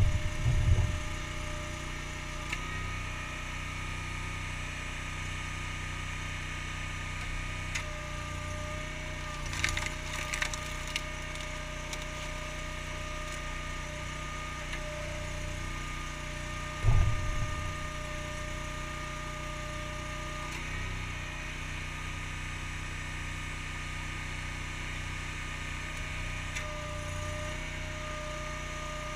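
Honda GX690 V-twin engine running steadily on a homemade log splitter, with a whine that comes and goes. Firewood is being split: a sharp crack of splitting wood about ten seconds in, and heavy thumps near the start and at about two-thirds through.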